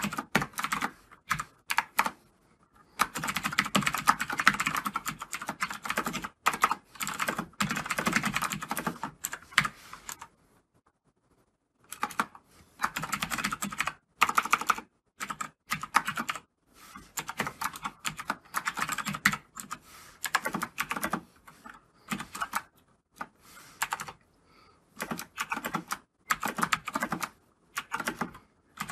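Fast typing on a computer keyboard: runs of rapid keystrokes broken by short pauses, with a silent stretch of about two seconds about a third of the way through.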